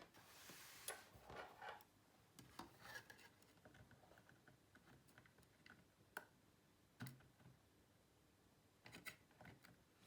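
Faint handling noises: scattered small clicks and short scrapes of pliers working at the tiny clip of the Wi-Fi antenna connector inside a 2018 Mac mini, prying it off the board.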